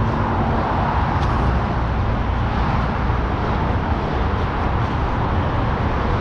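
Steady noise of road traffic, an even rush with no single vehicle standing out.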